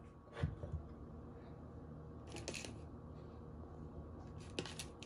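Small kitchen handling sounds as cherries are taken from a plastic container and set into a ceramic dish. A dull knock comes about half a second in, then two short rustling clatters, one midway and one near the end, over a faint steady hum.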